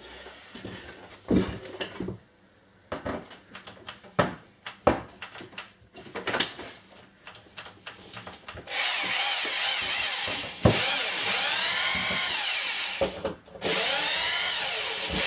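Scattered knocks and clicks of hand work, then a power drill runs in two spells of several seconds, its pitch rising and falling as the trigger is eased on and off, with a sharp knock in the first spell.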